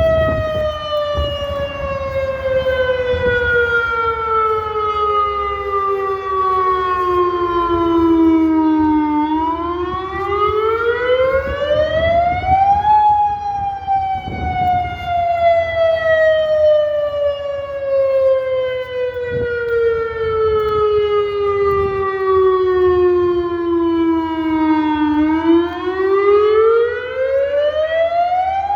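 Modulator warning siren sounding on test: one loud wailing tone that falls slowly in pitch for about nine seconds, then climbs back up over about four seconds, and does this twice.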